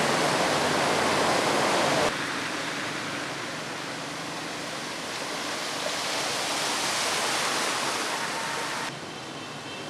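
Vehicles driving through flood water: a steady rush and splash of water pushed up by tyres. It is loudest in the first two seconds as an SUV ploughs through deep water, then drops suddenly to a quieter wash of splashing as cars and motorcycles ride through shallower water.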